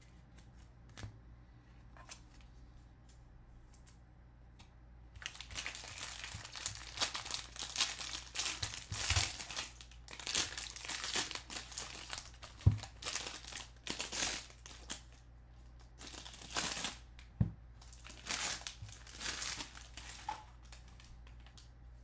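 Foil wrapper of a Bowman baseball card pack being torn open and crinkled in the hands, starting about five seconds in and going on in uneven bursts until near the end, with a few sharp taps among it.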